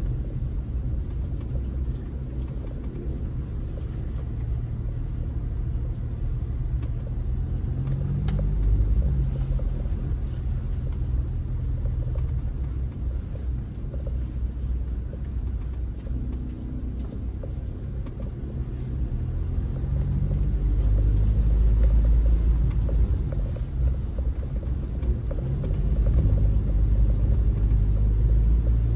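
Car driving through shallow floodwater, heard from inside the cabin: a steady low rumble of engine and tyres, growing louder about two-thirds of the way through.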